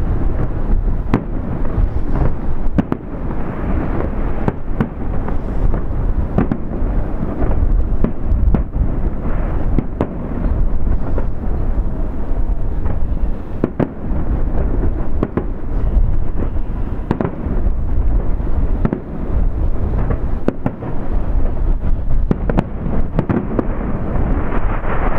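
Aerial fireworks display: shells bursting in quick succession, many sharp bangs over a continuous low rumble of overlapping reports. The crackle grows denser near the end.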